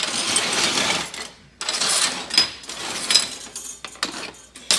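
Scrap aluminium offcuts clattering and scraping against each other and the metal welding table as they are gathered up by hand, with sharp clinks and a couple of brief metallic pings. There is a dense burst of scraping at first, then a short lull, then more scattered clinks.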